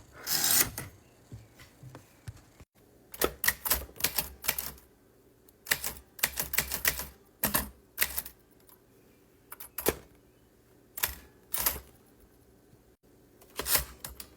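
Typewriter being typed on in short irregular bursts of key strikes, with pauses of a second or two between them.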